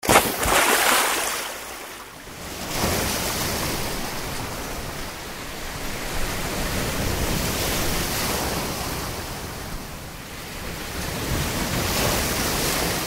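Sea waves breaking and washing in over the shallows, in surges that swell and ebb: strongest in the first second, easing off, then building again.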